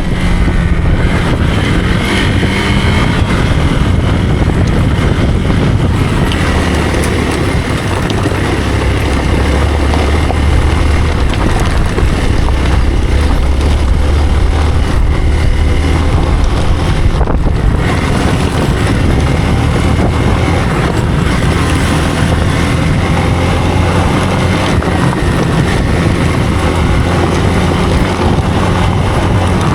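Hero Xpulse motorcycle's single-cylinder engine running steadily as the bike is ridden, with wind noise on the microphone.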